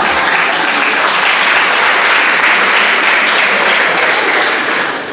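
Theatre audience applauding, a loud, steady clapping that dies down near the end.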